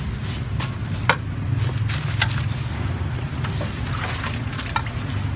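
A steady low engine rumble runs throughout, with scattered short clicks and crinkles on top.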